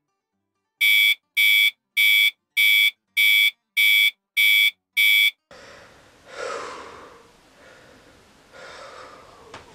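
Electronic alarm clock beeping: eight short, high-pitched beeps about 0.6 s apart. It stops, and a person wakes with a sharp gasp, followed by breathing.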